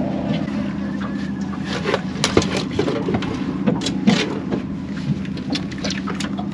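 Boat motor running at a steady pitch, with irregular knocks and clicks over it.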